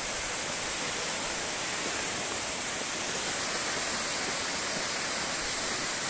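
A tall, thin waterfall about 50–60 m high, running full after heavy rain, pouring down a cliff onto rocks and into a pool: a steady, even rush of falling water.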